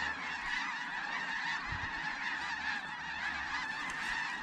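A huge flock of snow geese calling: a dense, unbroken chorus of many overlapping high-pitched honks.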